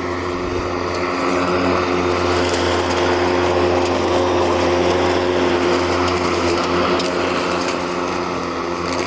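Mowrator S1 AWD remote-controlled battery lawn mower running while mowing: a steady hum of motors with several held tones over an even rush of noise.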